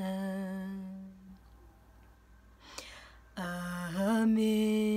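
A woman singing unaccompanied. A held note fades out about a second in, and after a short pause a new long held note begins about three and a half seconds in.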